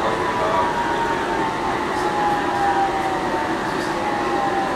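Copenhagen Metro train running, with a steady rumble of wheels and cabin noise and an electric motor whine that slowly falls in pitch as the train slows.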